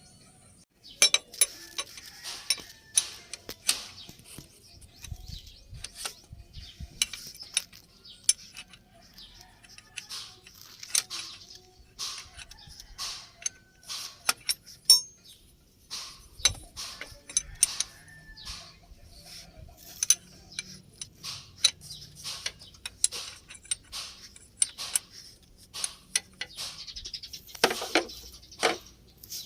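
Irregular sharp clicks and clanks of hand tools on metal, several a second, while a truck engine's drive belt is being tightened.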